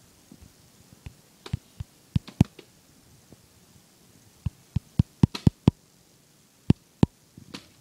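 Hard plastic frisbee knocking and clacking against a tile floor as a boxer dog paws and noses at it. The sharp knocks come irregularly, with a quick run of about six just past the middle.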